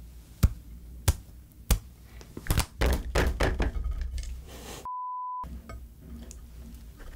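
Three sharp clicks about two-thirds of a second apart from the taut rubber skin of a Kyoho grape jelly ball, then a quick run of knocks as the ball is handled. About five seconds in comes a short high bleep, with all other sound cut out under it.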